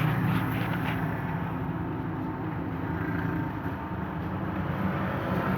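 Freshly overhauled Suzuki F6A three-cylinder engine idling steadily.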